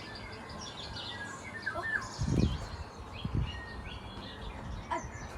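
Small birds chirping and calling, with two low thumps about two and a half and three and a half seconds in.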